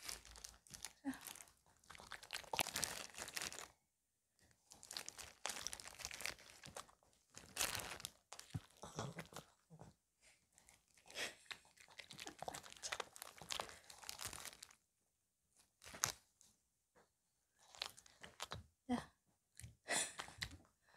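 A Maltese dog chewing crunchy napa-cabbage kimchi in quiet, irregular bursts with short pauses. Now and then a plastic food glove crinkles.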